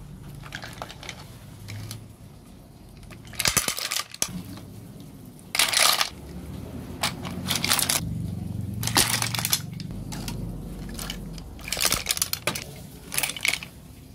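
Tulya clam shells clattering against each other and the metal basin as they are stirred in water, in several short bursts of clinking.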